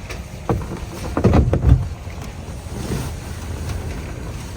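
Dull knocks and handling noise as a replacement steering wheel is pushed onto the steering column, the loudest cluster a little over a second in, over a low rumble like wind on the microphone.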